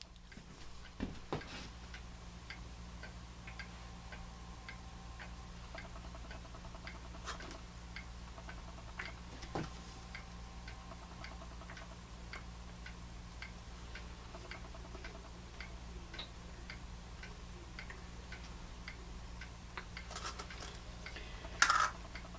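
Steady even ticking, about two ticks a second, over a low steady hum. A few louder knocks come from handling the plastic cup and latex ball, the loudest near the end.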